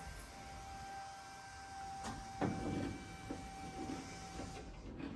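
A 1965 Ford Mustang backing up slowly while its brakes are tested, with a steady high-pitched squeal that stops near the end. About two seconds in there is a sharp click, then a low thump and rumble.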